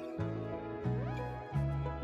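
Soft instrumental background music, a bass line moving to a new note roughly every two-thirds of a second under sustained higher notes, with one rising glide about halfway through.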